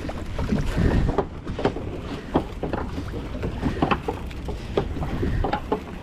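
Wet nylon gillnet being hauled by hand over the side of a small open fishing boat: irregular light knocks, drips and splashes as the mesh and its floats come out of the water and drop onto the deck, over a low rumble of wind and sea.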